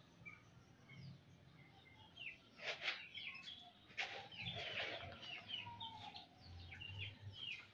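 Young chicks peeping: many short, high chirps that fall in pitch, with a couple of brief rustles as grain feed is scattered on the ground.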